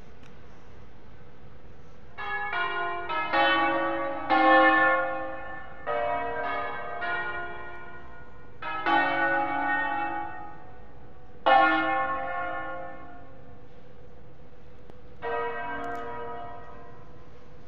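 The seven-bell concerto of Cremona Cathedral, tuned in A-flat, rung from its tower. About two seconds in it starts in clusters of overlapping strokes, several bells in quick succession, each cluster left to ring and fade before the next. The last cluster near the end is softer.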